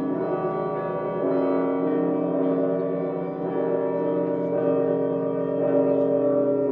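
Orthodox choir chanting slow, long-held chords that change every second or so.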